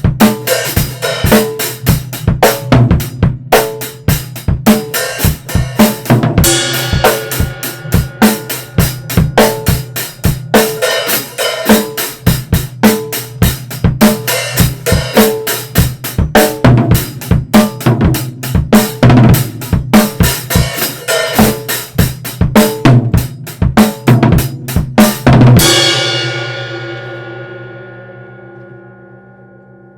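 Acoustic drum kit played through a raw two-mic recording: kick, snare, hi-hat and cymbals in a busy groove. About twenty-five seconds in, the playing ends on a last hit, and the cymbals and drums ring out and fade over a few seconds.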